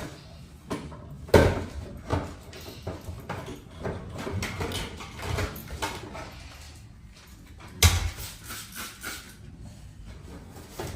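Household handling noise: a loud knock about a second in and another about two-thirds of the way through, with lighter knocks and clattering between.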